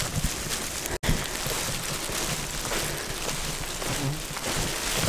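Rain falling, a steady dense hiss of drops that breaks off for an instant about a second in.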